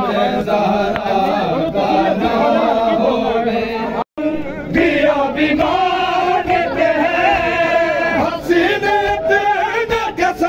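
A crowd of men chanting a noha together in mourning, many voices singing in unison. The sound drops out for a moment about four seconds in, then the chanting carries on.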